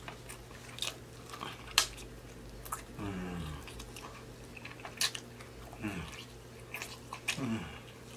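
Close-miked eating sounds from gnawing pork baby back ribs: repeated sharp wet smacks and clicks as the meat is bitten and sucked off the bone and chewed. Three short hums fall in pitch in between.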